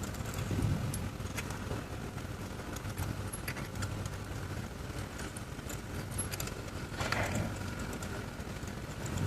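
Light metallic clicks and clinks of hand tools being handled, scattered and irregular, over a steady low hum.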